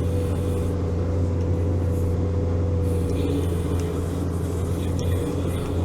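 Engine of the 'Veter' 6x6 all-terrain vehicle running at a steady pitch while driving.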